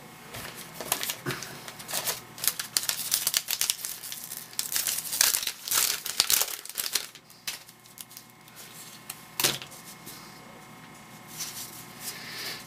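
A Topps Heritage baseball card pack's wrapper crinkling and tearing as it is opened, for about the first seven seconds. After that comes quieter handling of the cards, with one sharp click about halfway through and a light rustle of cards near the end.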